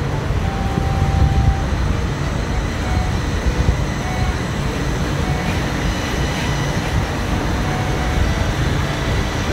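Bangkok Gold Line two-car rubber-tyred automated people mover (Bombardier Innovia APM 300) pulling into the elevated platform. A steady low rumble of its rubber tyres on the concrete guideway, with a faint high steady tone above it.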